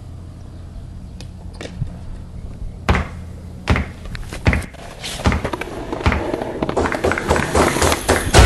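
Skateboard wheels rolling on concrete with a low rumble, then sharp clacks and thuds of the board being popped and landing, several knocks from about three seconds in and coming closer together near the end.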